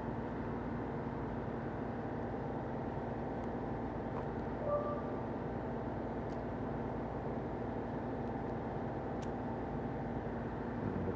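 Steady low mechanical hum with a few faint clicks, and a brief short tone about halfway through.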